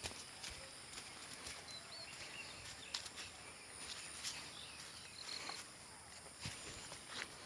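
Faint outdoor ambience: a low hiss with scattered clicks and knocks and a few short high chirps.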